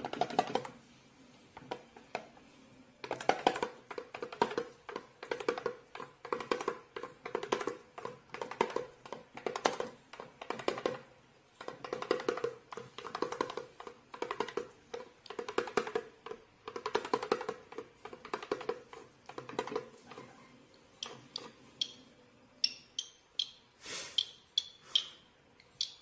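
A small red toy drum tapped by the cockatiel standing on it, in quick irregular rolls of taps with a ringing drum head. A few short, high cockatiel chirps near the end.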